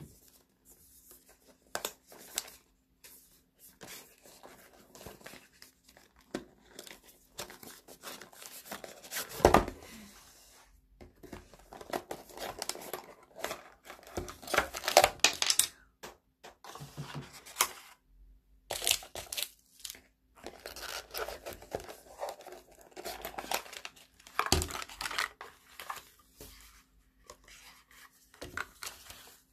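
Microphone packaging being opened by hand: irregular rustling, tearing and crinkling of paper and plastic, with a couple of sharper knocks as the box and its contents are handled.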